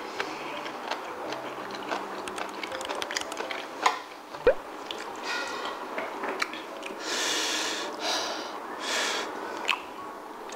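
Close-up eating sounds while chewing braised kimchi and pork belly: soft wet chewing clicks, with two sharp taps around the middle. In the second half there are three short breathy rushes of air.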